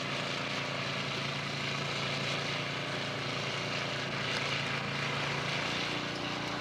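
A steady motor hum under a constant hiss, its pitch shifting slightly near the end.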